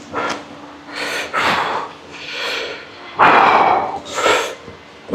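A man breathing hard, about five loud, noisy exhales through mouth and nose, the loudest about three seconds in: catching his breath after a strenuous set of bench presses.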